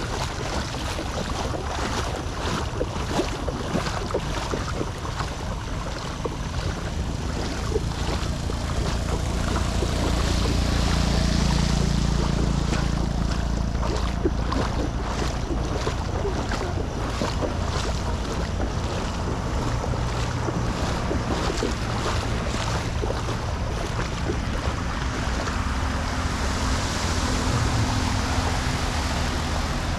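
Floodwater rushing and churning at a clogged storm drain, a steady, heavy rumbling wash with scattered small knocks and clicks.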